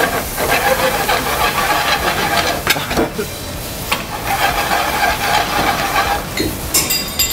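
Pork, bamboo shoots and shiitake sizzling in a hot frying pan over a gas flame as they are stir-fried with chopsticks, with a few sharp clicks and a short high clink near the end.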